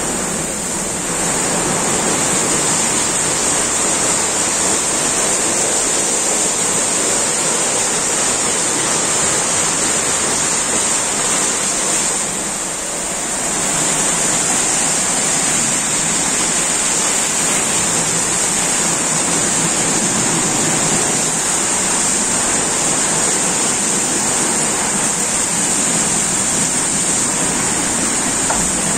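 Automatic gantry car wash running over a car: water and foam jets spraying and rotating brushes scrubbing, a loud, steady rushing hiss that dips briefly about halfway through.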